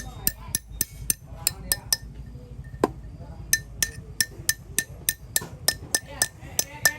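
Hammer blows on metal parts, sharp ringing strikes about three to four a second, with a short pause near the middle.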